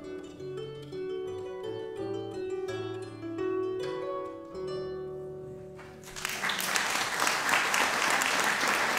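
Harp playing the last phrase of a solo, plucked notes over a low bass line, closing on held ringing notes. About six seconds in, an audience breaks into applause, louder than the harp.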